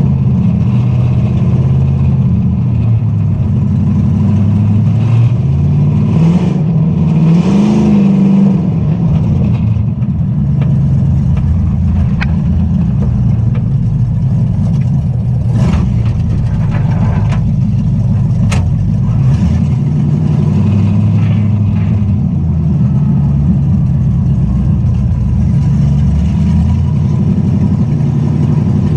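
A Dodge Dakota's swapped-in 5.3 L LM7 V8 running under way, heard from inside the cab; the engine note rises as it accelerates about seven seconds in, and a few sharp clicks sound in the middle part.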